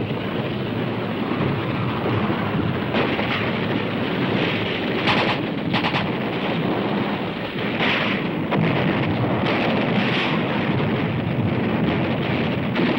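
Battle soundtrack of artillery fire: a continuous dense din with sharper gunfire bursts a few times around the middle.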